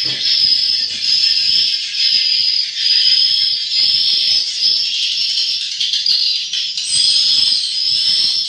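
Recorded edible-nest swiftlet calls, the 'inap' roosting sound, played through tweeter speakers to lure swiftlets to roost: a loud, continuous chatter of high chirps and twitters, with a short high note repeating about once a second.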